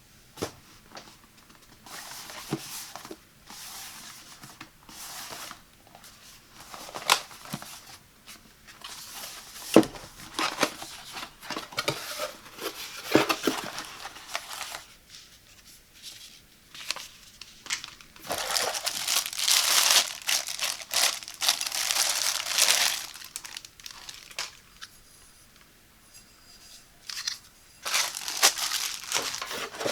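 Packaging of a boxed mini rice cooker being torn and crinkled open by hand: irregular bursts of tearing and rustling with a few sharp clicks, broken by short pauses, and one longer stretch of tearing a little past halfway.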